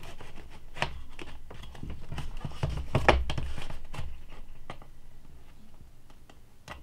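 Utility knife blade slitting the packing tape along the edge of a small cardboard box: a run of short scratching and scraping strokes, busiest around the middle and thinning out toward the end.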